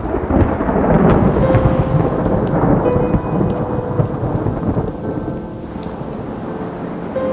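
Thunder breaking suddenly into a long, deep rumble that slowly dies away, with rain, over faint held piano notes.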